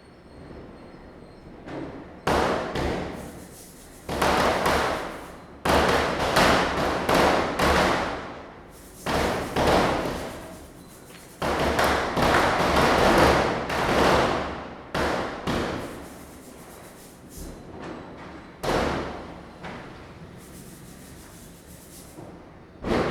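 Diwali firecrackers bursting: sharp bangs, each with a short echoing tail, coming in dense rapid runs in the first half and thinning to a few scattered single bangs later.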